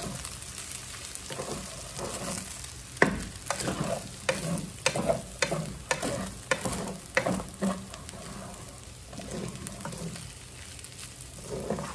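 Wooden spatula scraping and knocking against a copper-coloured frying pan as fried rice is stirred and tossed, in irregular strokes that are busiest in the middle and thin out near the end, over some sizzling from the hot pan.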